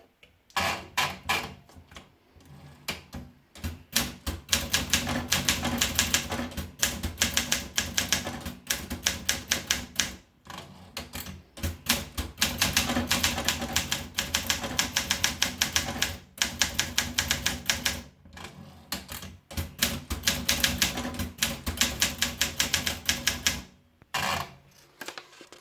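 Olympia Monica manual portable typewriter being typed on: runs of rapid key strikes, several a second, broken by a few short pauses.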